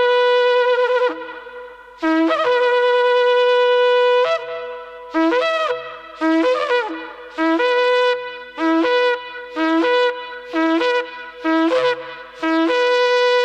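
Shofar, a long twisted horn, being sounded. It gives two long blasts, then a run of about seven short blasts roughly a second apart, then another long blast near the end. Each blast starts on a lower note and jumps up to a higher one.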